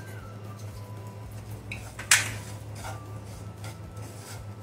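A spatula stirring and scraping besan roasted in ghee around a metal kadhai, with soft scrapes and one sharp knock of the spatula on the pan about two seconds in, over a steady low hum.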